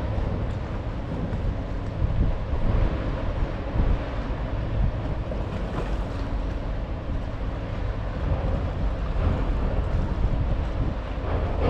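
Steady low rumble of a car ferry under way, with wind buffeting the microphone and water rushing past the hull.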